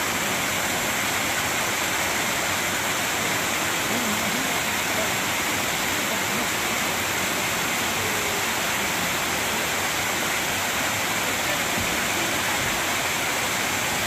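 Tall waterfall and the rocky cascade below it, water pouring and splashing over stone in a steady, even rush.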